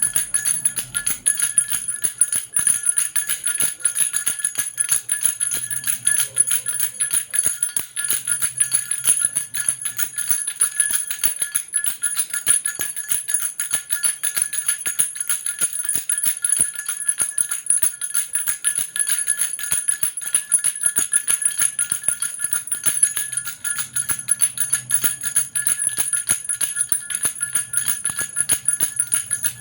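Baby rattle with small jingle bells shaken without a break: a dense, even jingling with ringing bell tones.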